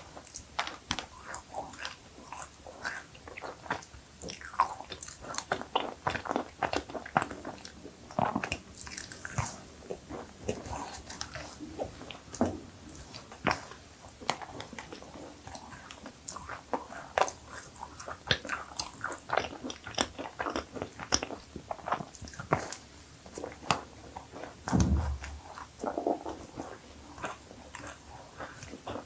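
Cookies being bitten and chewed, with irregular crunching and crackling mouth sounds throughout. A single low thump comes about 25 seconds in.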